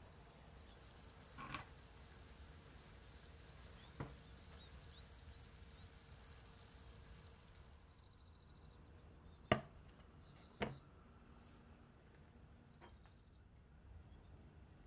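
Quiet room tone broken by a few sharp clicks, the two loudest about a second apart past the middle, with faint high chirping around them.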